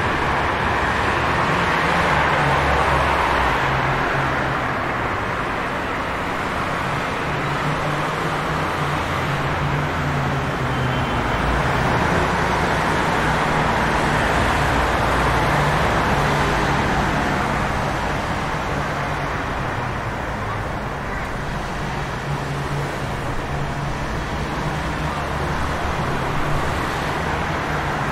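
Steady city traffic on a wet street, with tyres hissing and engines humming as a continuous wash that slowly swells and eases.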